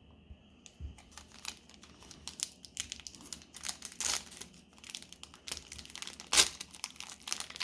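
Plastic wrapper of a 2020-21 Panini NBA Hoops trading card pack being crinkled and torn open: irregular crackling, with one sharp, loud crackle about six seconds in.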